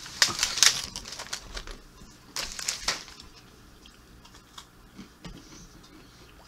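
Thin plastic snack wrapper crinkling as a hand digs in and pulls out ladyfinger biscuits. There are two bursts of crackling, the second about two and a half seconds in, then only faint small rustles and clicks.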